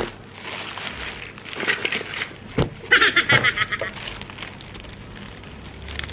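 Black plastic courier bag crinkling and rustling as it is handled, with a sharp click about two and a half seconds in and a loud burst of rapid crackling just after, then quieter rustling.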